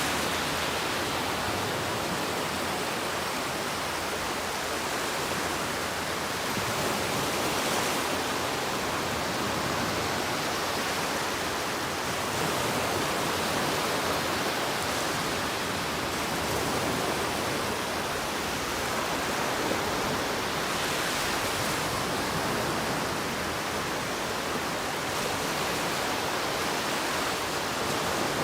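Ocean waves washing onto a beach: a steady rushing hiss of surf that swells a little now and then.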